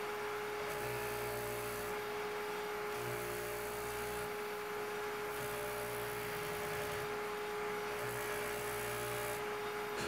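Trautman carver running with a steady, even-pitched whine, its sanding disc grinding the laminated plastic at the end of a prosthetic socket in short passes, so the grinding hiss comes and goes every second or two. It is opening up the end of the socket's lock so a lanyard pin can pass through.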